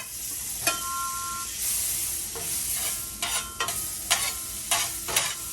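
Butter sizzling in a hot cast iron pan, with a series of short knocks and scrapes of a utensil against the pan and a brief metallic ring about a second in.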